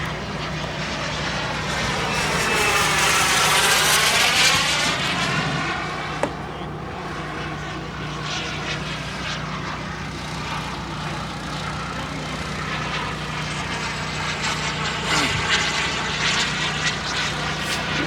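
Radio-controlled turbine jet flying past, its jet noise swelling to a peak about four seconds in, fading, then building again near the end as it makes another pass.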